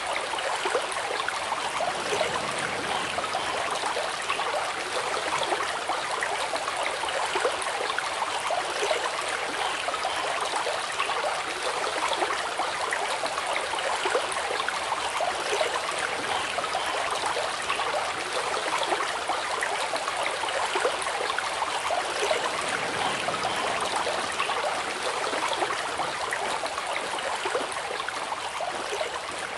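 Running water of a stream, flowing steadily with a dense, even splashing.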